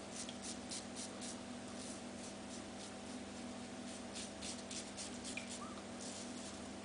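Short scratchy rasps of a Merkur slant double-edge safety razor cutting lathered stubble, a quick run of strokes in the first second or so and another about four seconds in. A faint steady hum sits underneath.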